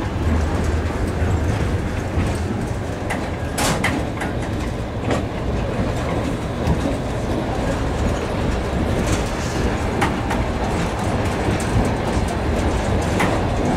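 Passenger train running on the rails, heard from inside the carriage: a steady low rumble with a few separate sharp clicks of the wheels over rail joints.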